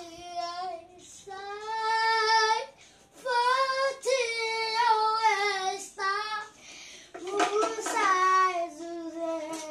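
A boy singing in long, held, wavering notes: several sung phrases with short breaks between them.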